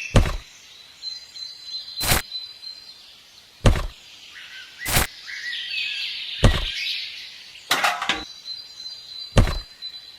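A series of sharp knocks, roughly one every second and a half, with birds chirping in the background.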